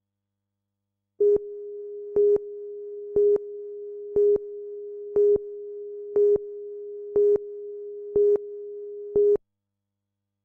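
A steady electronic tone with a louder beep about once a second, nine beeps in all. It starts about a second in and cuts off suddenly near the end.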